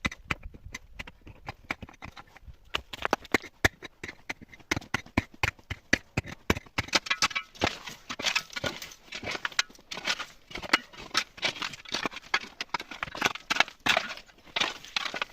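Rapid, irregular sharp knocks and clicks, several a second, growing denser and brighter from about seven seconds in.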